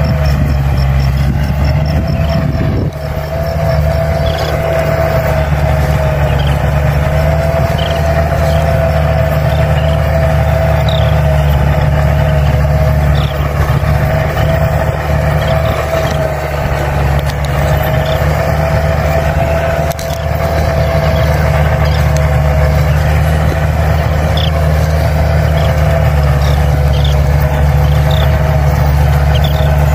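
Farm tractor engine running steadily under load while pulling a rotavator through grassy soil, with a steady mid-pitched whine over the engine note.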